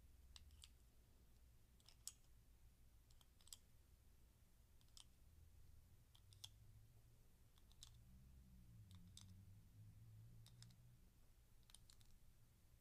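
A dozen or so faint, irregular clicks of small plastic Digi-Block ones-blocks being picked up and packed into a block-of-ten container.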